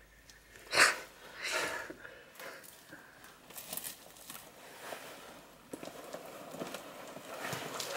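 Nylon camping hammock rustling and swishing as it is pulled open by hand and then sat into, with a short sharp swish of the fabric about a second in, the loudest sound.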